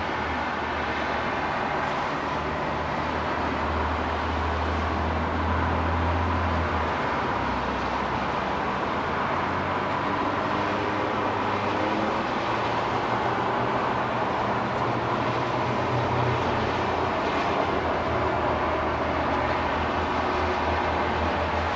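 Distant road traffic: a steady rumble and hiss of vehicles, with a low engine drone that is strongest for the first several seconds and comes back more weakly around the middle.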